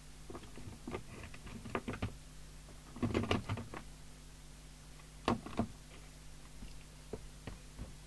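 A scattering of small clicks and knocks from equipment being handled on a workbench, loudest in a quick cluster about three seconds in and a pair just after five seconds, over a faint steady electrical hum.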